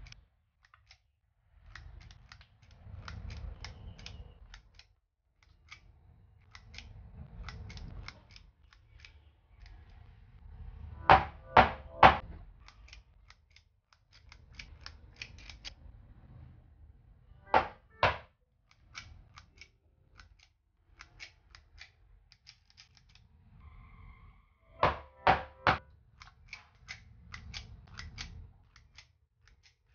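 Stainless-steel lever-release scoop clicking as its sweeper works, with soft plops and scraping of thick batter into a metal loaf pan. A few times come sharp loud clacks in quick runs of three or four.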